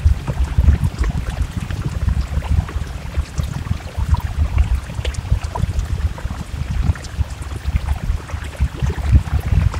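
Rain falling, with scattered drops ticking, over a dense low rumble that rises and falls all through.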